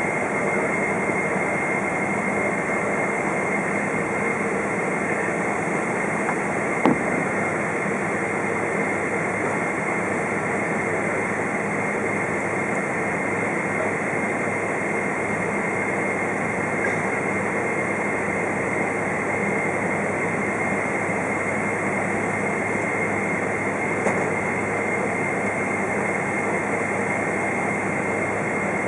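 Steady cabin noise inside a Boeing 777-200 taxiing, its jet engines at idle with a steady high whine over the rush of air. A single sharp click about seven seconds in, and a fainter one near the end.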